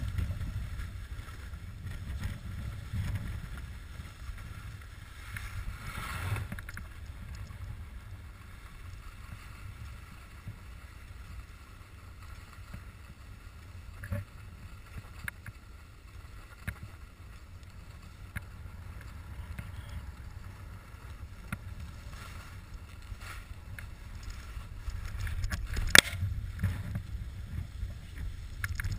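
Wind buffeting the microphone during a downhill ski run, a steady low rumble over the hiss of skis sliding on snow, with a sharp click near the end.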